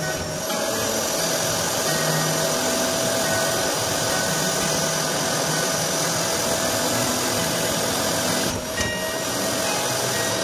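Long-reach electric drywall sander running steadily against a plasterboard wall, sanding dried joint compound, with a constant motor whine over the noise of the disc and its dust extraction. The sound dips briefly a little before the end.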